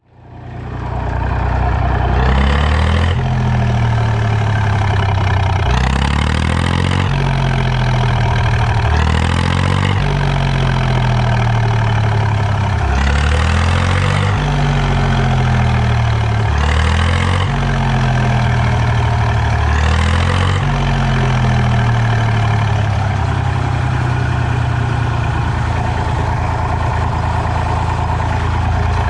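IMT 533 tractor's three-cylinder diesel engine running, blipped about six times so that it revs up and falls back to idle each time, then idling steadily for the last third.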